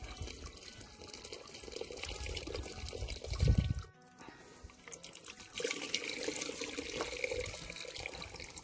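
Thin red pumpkin-seed mixture (ground pepita with achiote paste in water) poured through a hand strainer into a clay pot of boiling beans, splashing and trickling steadily. There is a single loud thump about three and a half seconds in, and the pouring sound drops out briefly just after it.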